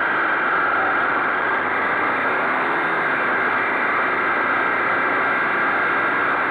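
Honda CBX 250 Twister's single-cylinder engine running steadily at low revs while the motorcycle rides slowly, under a steady rush of wind and road noise on the microphone.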